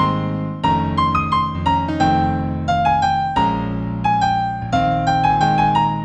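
Solo piano playing a slow New Age piece in A minor: a melody of single notes, about two or three a second, over held low chords.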